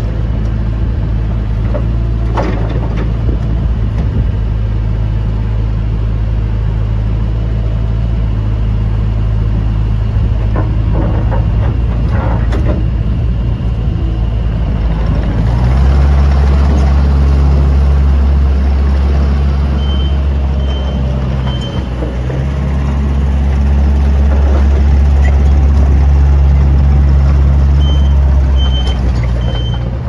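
Takeuchi TL130 compact track loader's 67 HP Yanmar diesel running steadily, then revving higher about halfway through as the loader works and travels, easing off near the end. A few metallic clanks in the first half, and a reverse alarm beeping in short sets of three about two-thirds of the way in and again near the end.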